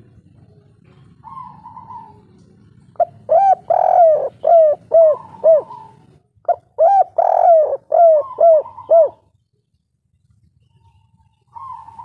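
A spotted dove of the 'kuk 3' song type cooing: two loud phrases of rapid coos, each about three seconds long, with a drawn-out rolling note in the middle. A short pause separates the two phrases.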